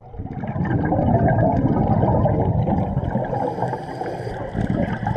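Bubbling water: a dense, continuous gurgle of air bubbles. It swells in over the first second and eases slightly in the second half.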